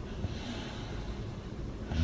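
A sleeping woman's soft, airy breathing in the pause between loud snores, with the next snore starting right at the end.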